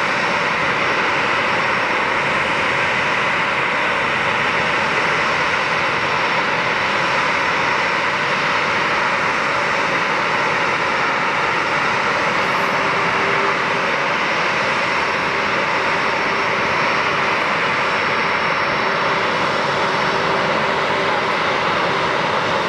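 Boeing 737-300's CFM56-3 turbofan engines running at idle: a steady, even jet noise with a high whine on top, holding level throughout.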